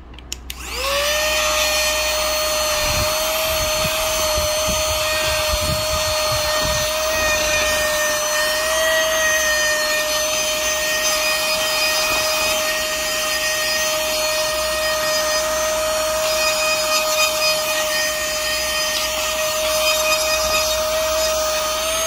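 Battery-powered handheld mini vacuum cleaner switched on with a click about half a second in. Its motor quickly spins up to a steady high whine and keeps running while it sucks up loose grains from a glass tabletop.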